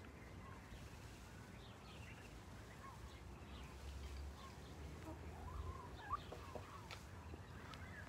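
Faint, scattered short calls of poultry: chickens and ducks calling in a pen. A single sharp click comes about three-quarters of the way through.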